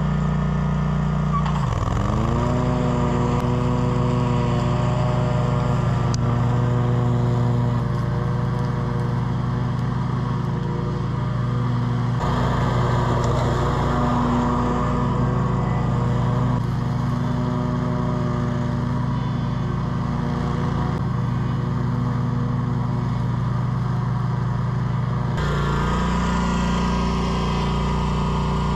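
Engine of a Scag V-Ride 2 stand-on mower running steadily; its pitch dips sharply about two seconds in and climbs back up.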